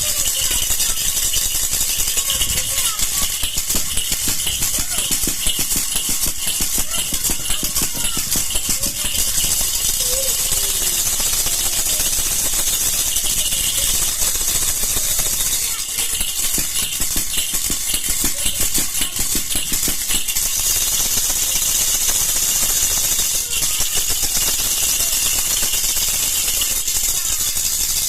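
Baby rattle (jhunjhuna) shaken steadily: a dense, fast, continuous rattling of the loose pieces inside, easing briefly about sixteen seconds in.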